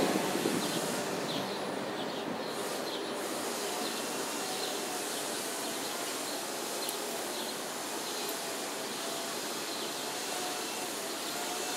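Steady city ambience: an even wash of distant traffic noise, with scattered faint high chirps above it.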